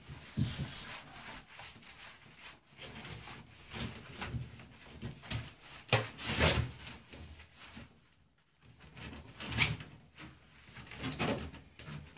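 Hands scrubbing and lathering a wet pit bull puppy's coat: irregular wet rubbing strokes, with louder bursts about six and nine and a half seconds in and a brief lull between them.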